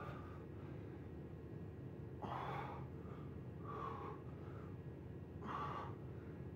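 A man breathing hard while doing push-ups: four short, forceful breaths, about one every one and a half to two seconds.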